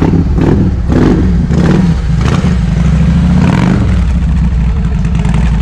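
Large cruiser motorcycle engine revved in a series of quick blips, a deep rumble that surges about twice a second, then settles to a steadier run near the end.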